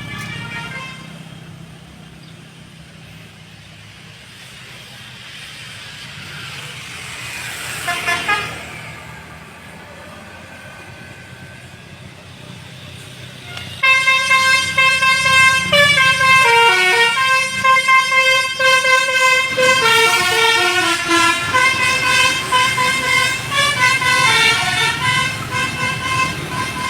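A passing vehicle's road noise swells and fades about eight seconds in. Then, about fourteen seconds in, a bus's 'telolet' Basuri multi-tone horn starts suddenly and loudly, playing a melody of stepping notes with sliding drops in pitch.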